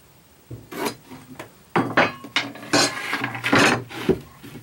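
Wooden fence board being handled on a miter saw table: a series of sharp knocks, short scrapes and clinks as it is moved and set in place, with the saw not running.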